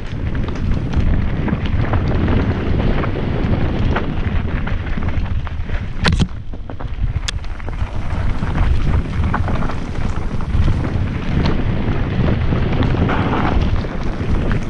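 Mountain bike descending a fast dirt trail, heard from a camera on the handlebar: wind buffets the microphone over a steady rumble, with frequent small rattles and knocks from the bike over rough ground. Two sharp knocks come about six and seven seconds in.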